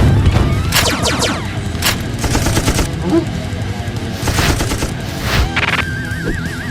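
Background music layered with action sound effects: a series of sharp impacts and a rapid burst like gunfire, then a warbling electronic tone starting near the end.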